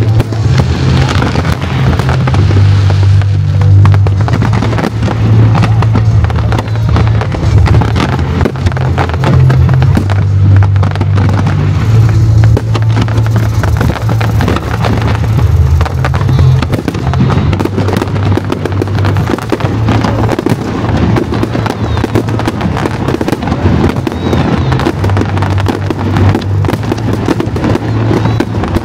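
Fireworks bursting in a dense, continuous barrage of bangs and crackles, with music playing underneath.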